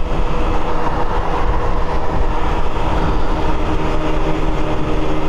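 Yuki Margherita scooter's 50cc engine, bored out to 80cc, running steadily at high revs near its top speed, with wind rushing over the microphone.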